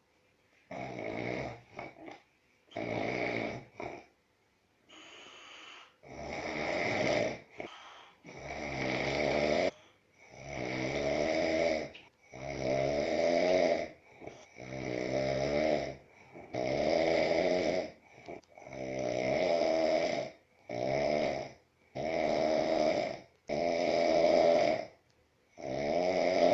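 A man snoring in his sleep, with a loud snore on every breath about every one and a half to two seconds. The first few snores are shorter and quieter.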